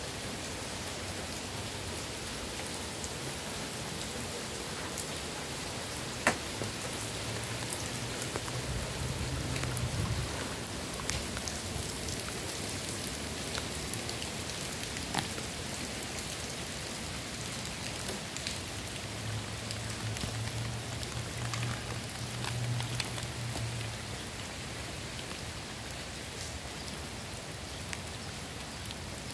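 Steady rain falling, an even hiss with scattered sharper drip ticks. A low hum swells and fades twice underneath.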